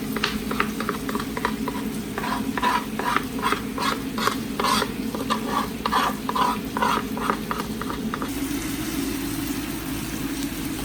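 Chicken breasts frying in oil in a pan, sizzling steadily. For about the first eight seconds a utensil scrapes against the pan in quick repeated strokes, then only the sizzle remains.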